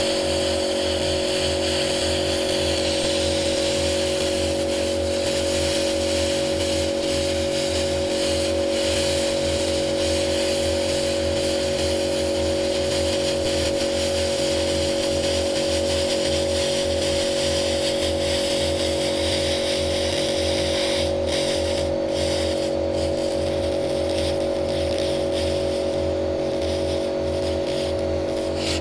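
A DPL-200 200 W pulsed laser cleaning machine stripping paint from a white car panel. It gives a steady machine drone with a few fixed tones, under a continuous hissing crackle as the paint is burnt off.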